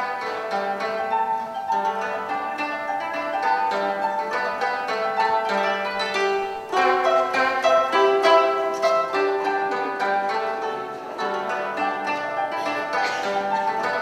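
Koto, the Japanese long zither, plucked with finger picks, playing a melody of quick single notes; the playing grows louder and fuller just before halfway through.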